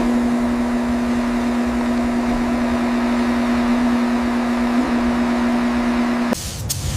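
A motor running at a steady pitch with a noisy whir, then switching off suddenly about six seconds in.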